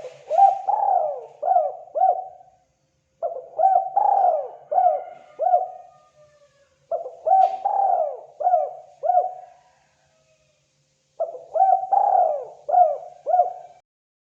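Spotted dove (terkukur) cooing: four repeated calling phrases, each of about five short coos, with brief pauses between phrases.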